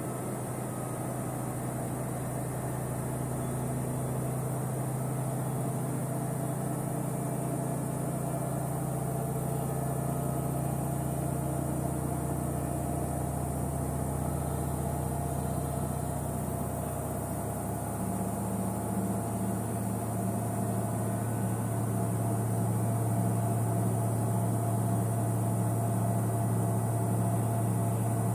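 Samsung front-load washing machine running, a steady low motor hum that shifts in tone and grows slightly louder about two-thirds of the way through.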